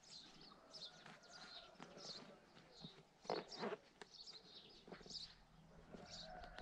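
Faint chirping of small birds, short high calls coming every fraction of a second, with two short knocks a little past the middle.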